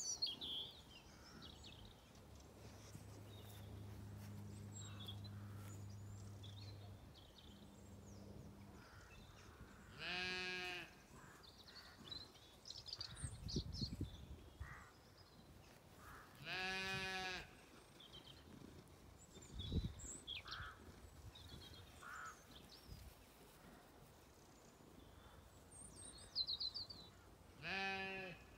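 Zwartbles sheep bleating three times, each bleat about a second long, with scattered bird chirps between them. A low steady hum runs through the first part, and there are a couple of dull thumps on the microphone.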